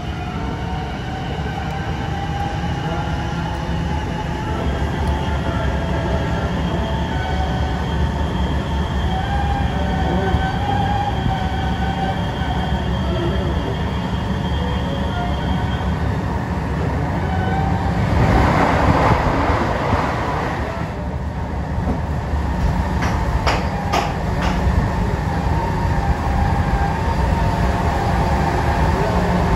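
Alstom NS-16 rubber-tyred metro train running at speed between stations, heard from inside the car: a steady low rumble with a whining tone that wavers in pitch. About eighteen seconds in, a rush of noise swells for about three seconds, followed by a few sharp clicks.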